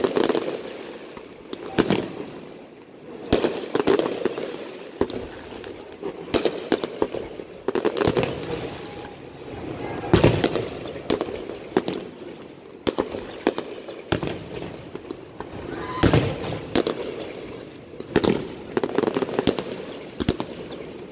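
A fireworks display: aerial shells bursting in a long irregular run of loud bangs, one to three a second, with a continuous low rumble between them.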